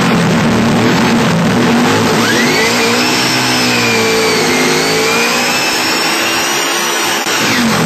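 Ford Mustang drag car's engine running loud, heard from inside the car. It holds a steady drone at first. From about two and a half seconds in, its pitch climbs, dips and climbs again, with a high whine riding on top, and drops back near the end.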